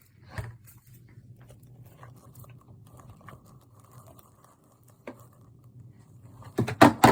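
Handling noise: faint rustling and small clicks over a low steady hum, then several loud, sharp knocks near the end.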